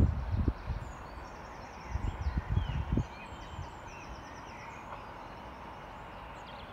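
Wind buffeting the microphone in rough low gusts near the start and again about two to three seconds in, over small birds chirping and trilling in quick high notes.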